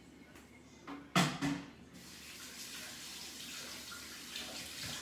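A couple of knocks about a second in, then a kitchen tap running into a sink for about three seconds and shut off sharply.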